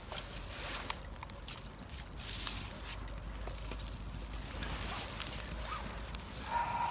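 A small kindling fire, started with a paper receipt, crackling with scattered sharp snaps as it catches, with a louder rustling burst about two seconds in.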